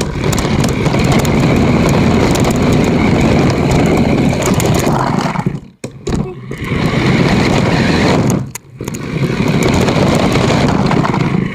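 A small electric RC car running with the recording device taped onto it: loud motor and wheel noise that cuts out briefly twice, around the middle and about two-thirds of the way through.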